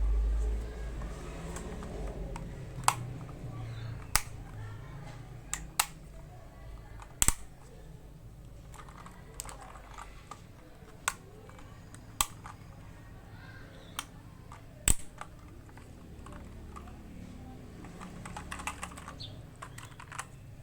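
Keychron K2 (version 2) mechanical keyboard with Gateron Brown switches and ABS keycaps, its keys pressed one at a time: single sharp clacks spaced a second or two apart, with a quicker run of keystrokes near the end.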